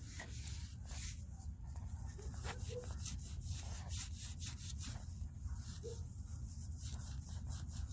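A rag rubbing and wiping over a boat engine, trying to clear what looks like spilled gas, with scattered light clicks and a few faint short squeaks over a steady low hum.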